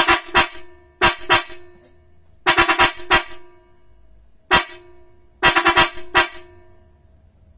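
Four small 'çat çat' electric disc car horns, two pairs of different pitch, sounded together on a bench power supply in a string of short honks, some in quick doubles and one held for about half a second. Their coils have been rewound with fewer turns and they are being tested before being sent back to the customer.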